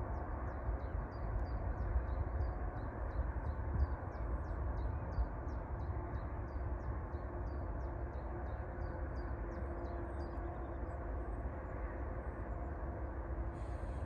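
A small songbird singing a long run of short, high, quickly repeated notes, about three a second, that stops about ten seconds in. Underneath is a steady low rumble.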